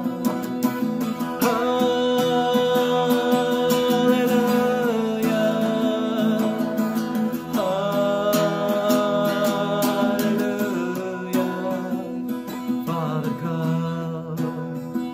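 A man singing a slow worship song in long held notes over his own strummed acoustic-electric guitar. The voice stops near the end while the guitar strums on.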